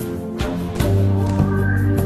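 Music with sustained chords and a strong deep bass note coming in about a second in, with a few sharp cracks over it.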